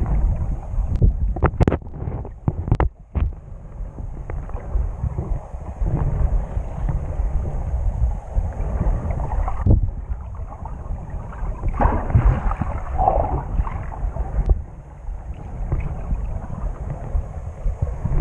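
Muffled underwater noise picked up by a camera held below the surface: a low, steady rumble of moving water, with a few sharp clicks about one to three seconds in.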